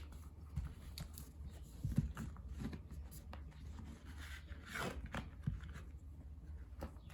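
Hands handling a CD album and its paper and plastic contents: light clicks and taps with rustling, and a longer rustling slide about four to five seconds in.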